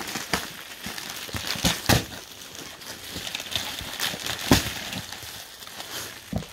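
Suit fabric and its packaging being handled: crinkling and rustling with a few irregular knocks, the loudest about two seconds in and again about four and a half seconds in.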